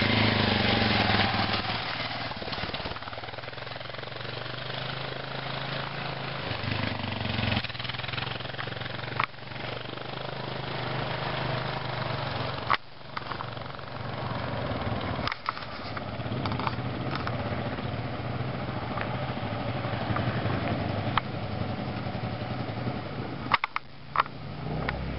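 Kawasaki KLR650 single-cylinder dual-sport motorcycle running on dirt, loudest at the start as it passes close and then a steady engine drone as it rides away. A few sharp knocks near the end.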